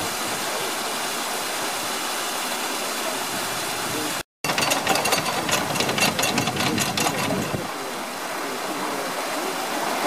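Water rushing steadily through the open paddle of a wooden canal lock gate. After a brief break about four seconds in, a rapid run of metallic clicks lasting about three seconds, the ratchet of the lock's paddle gear being worked, over the running water.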